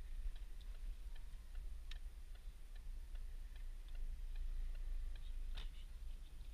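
Car turn-signal indicator ticking evenly, about three clicks a second, over the low rumble of the 2015 Ford Focus's diesel engine heard inside the cabin. One louder click comes near the end.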